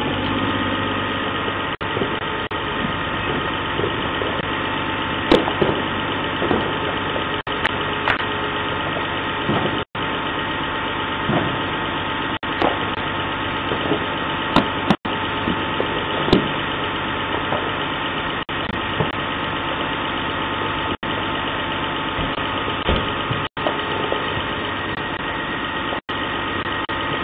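Fire engines idling: a steady engine hum with a few steady high tones, heard through a doorbell camera's narrow-band microphone. Several sharp pops break through now and then.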